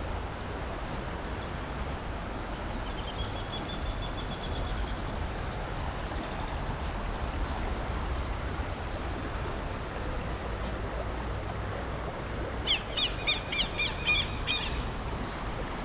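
Steady rush of a shallow river flowing over riffles. A bird gives a faint held whistle about three seconds in, then a fast series of about ten loud chirps near the end.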